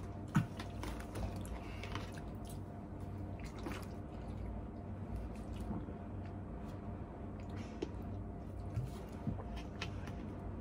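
A person drinking water and making small mouth sounds, with scattered light clicks and taps over a steady low hum.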